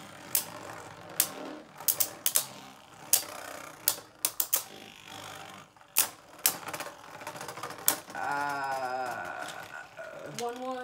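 Two Beyblade spinning tops running in a plastic stadium, knocking against each other and the walls in a string of sharp irregular clacks over a steady whirr. About eight seconds in, a child's voice rises and falls for about a second.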